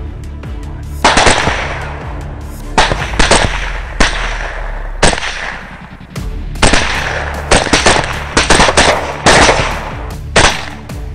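Rapid semi-automatic rifle fire: a dozen or more sharp shots in quick strings and pairs, starting about a second in, over background music with steady low bass.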